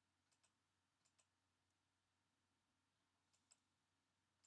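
Near silence with faint computer mouse clicks, coming in three quick pairs and one more click at the end.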